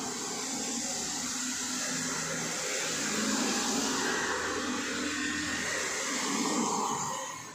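Street traffic passing close by: cars and a motor scooter going past with steady tyre and engine noise, swelling as each vehicle passes and dying away near the end.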